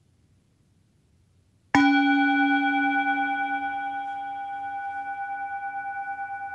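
A metal singing bowl is struck once with a wooden striker, just under two seconds in. It then rings on with several steady tones that fade slowly with a gentle pulsing wobble, sounded to open a meditation.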